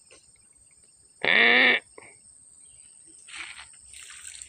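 Insects droning steadily at one high pitch, with one short loud call, rising slightly in pitch at its start, a little over a second in, and faint scuffing in the last second.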